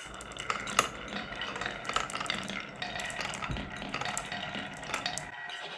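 Marbles rolling and clacking along a wooden marble run: a dense, irregular patter of clicks and rattles, with a sharp knock a little under a second in.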